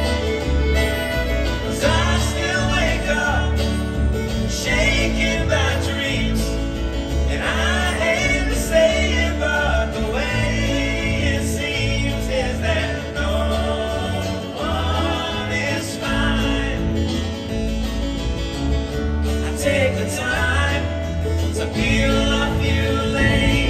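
Live acoustic string band playing a country-bluegrass song: acoustic guitar, banjo, fiddle and a plucked upright bass keeping a steady pulse, with a man singing lead.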